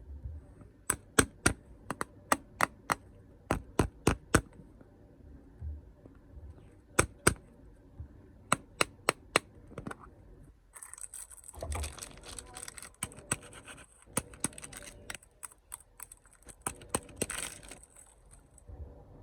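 Snack packaging being handled: a run of sharp taps and clicks, then about eight seconds of crinkling and tearing of a plastic wrapper with clicks running through it.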